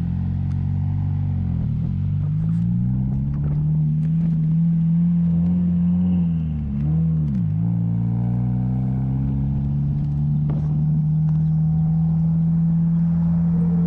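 A motor engine running steadily under load. Its pitch wavers during the first couple of seconds, drops and climbs back about seven seconds in, then holds even.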